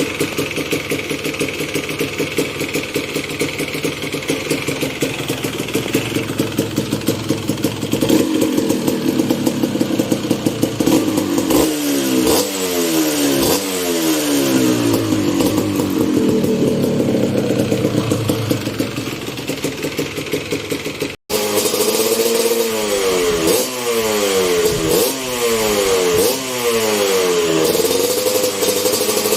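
Stock 2002 Kawasaki KMX 125's two-stroke single-cylinder engine running at a steady idle, then revved in a series of quick throttle blips that rise and fall, several in a row around the middle and again near the end.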